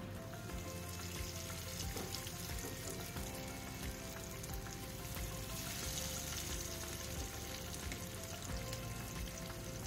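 Fish steaks sizzling and crackling as they shallow-fry in hot mustard oil in a pan, with soft background music.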